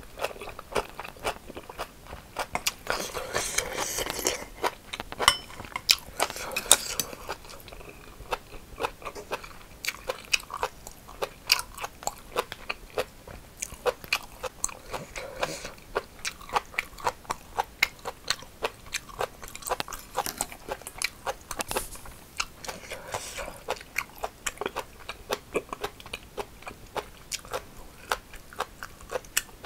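Close-up chewing of crunchy cucumber bibimbap: a steady run of crisp crunches and mouth clicks, about two to three a second.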